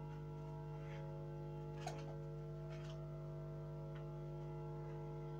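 Steady electrical hum with a few faint, short clicks and ticks.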